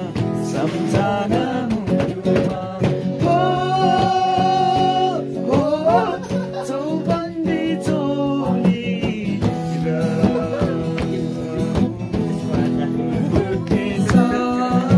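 A song playing: a voice singing long held notes over plucked guitar.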